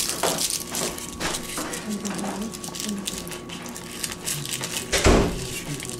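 Garlic cloves being peeled with a small paring knife: papery skins crackling and rustling, with small clicks, and one louder bump about five seconds in.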